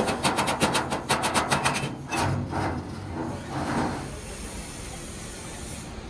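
Hammer tapping rapidly along the bent edge of a curved stainless steel sheet held against a steel bar, several quick taps a second, stopping about two seconds in. Then a few short scraping rubs.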